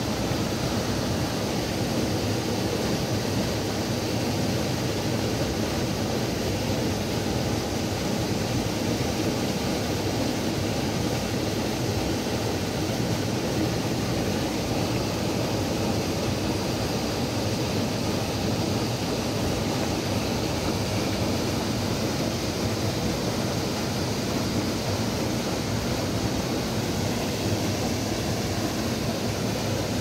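Waterfall and river water rushing steadily.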